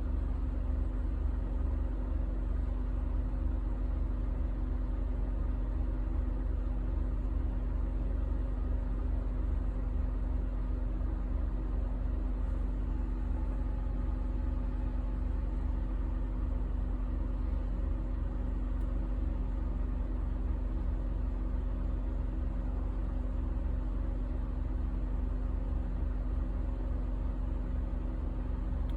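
2007 Honda Ridgeline's 3.5-litre V6 idling with an uneven, stumbling beat: a misfire that shows on a cold first start-up.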